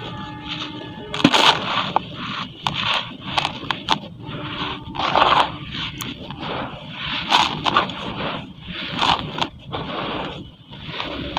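Charcoal concrete crumbling and being scraped in water: gritty scraping and crunching in repeated bursts, with sharp crackling clicks.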